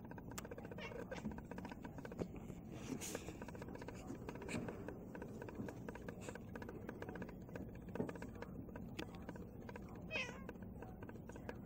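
Domestic cat meowing, with a clear call about ten seconds in.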